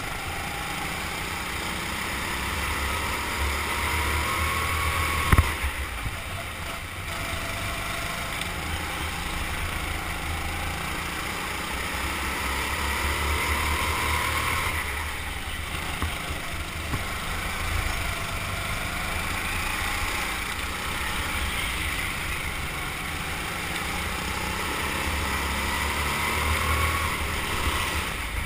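Rental go-kart running on track. Its motor note rises in pitch as the kart accelerates and drops away as it slows, about four times over. There is a sharp knock about five seconds in.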